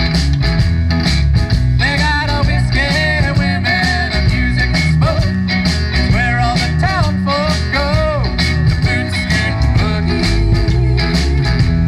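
Live party band playing a bluesy rock tune: bass and drums keep a steady beat under a melodic lead line that bends up and down in pitch, with no words sung.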